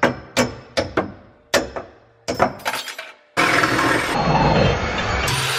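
A series of sharp metal strikes, each ringing briefly, as a jammed reciprocating-saw blade is hammered out of a pinched steel roll-cage tube. About three seconds in, this gives way to a power tool running steadily and loudly.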